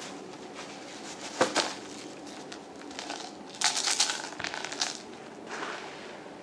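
Thin plastic bag crinkling and rustling in short bursts as it is handled: a sharp burst about a second and a half in, and a longer, louder cluster of crinkles around four seconds in.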